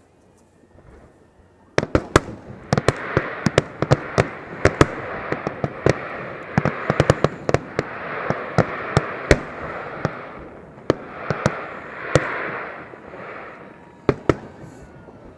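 Fireworks show exploding: after a quiet start, a dense barrage of sharp bangs about two seconds in over a continuous crackle, thinning out after about twelve seconds to a last few scattered bangs.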